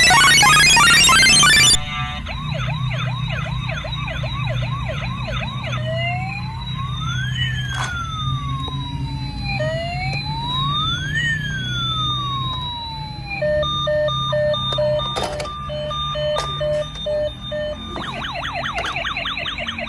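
Toy ambulance's electronic siren cycling through its patterns: a fast yelping sweep, then slow rising-and-falling wails, then a stepped beeping tone, then the fast yelp again, over a low steady hum. It opens with about two seconds of loud, dense clatter that cuts off suddenly.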